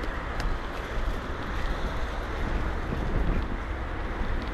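Wind buffeting the microphone of a camera on a moving bicycle, a steady low rumble over the noise of heavy city car traffic.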